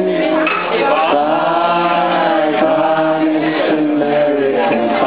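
Live acoustic band playing, with several voices singing together in long held, wavering notes over strummed acoustic guitar.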